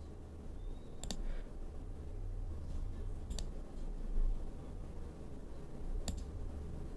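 Three sharp computer mouse clicks a couple of seconds apart, over a low steady hum.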